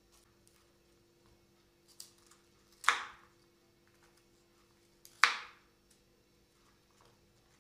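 Cauliflower florets being cut from the head with a knife on a wooden cutting board: two loud crisp crunches about two seconds apart, with a softer click and faint taps between them.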